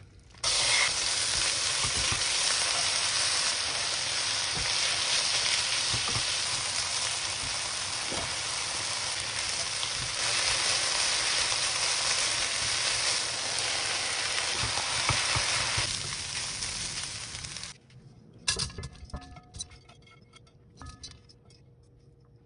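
Chicken pieces, diced onion and carrot and sliced mushrooms sizzling loudly in hot oil in a frying pan while they are stirred. The sizzle starts suddenly as the food goes in and cuts off sharply about three-quarters of the way through. After that come a few short clicks and scrapes of a spatula as the stir-fried rice mixture is pushed into a rice cooker pot.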